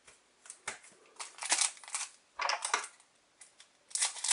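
Crinkling of an Adrenalyn XL trading-card foil booster pack and cards being handled, in short crackly bursts about a second in, around two and a half seconds, and again near the end.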